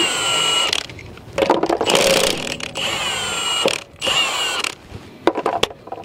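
Milwaukee M18 cordless impact wrench run in about four short bursts on a car wheel's lug nuts, removing them. Each burst ends in a falling whine as the motor spins down, with a few clicks near the end.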